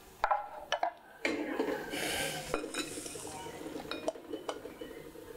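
A stainless steel pot and wire-mesh sieve clinking as boiled noodles are drained. A rush of pouring water about a second in, then a few light metallic clinks.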